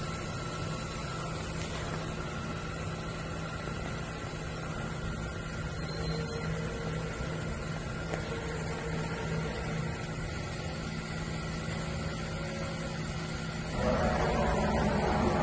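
A DMG Mori DMU 210P five-axis CNC machining centre running with a steady hum and a constant low tone. Near the end, a louder rushing noise sets in.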